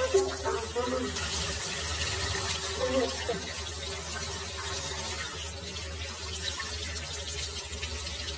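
Water running steadily from a tap or shower spray, with a low steady hum underneath.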